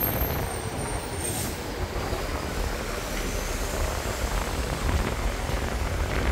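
Steady rush of road traffic going by, with no break or sharp sound.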